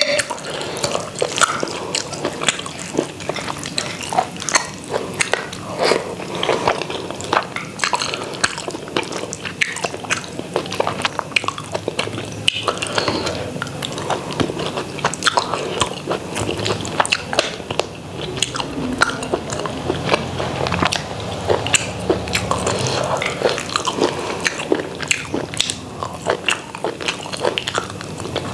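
Close-miked eating sounds of a person eating rice and chicken curry by hand: chewing and wet mouth smacks, mixed with fingers squishing rice on the plate, many small irregular clicks throughout.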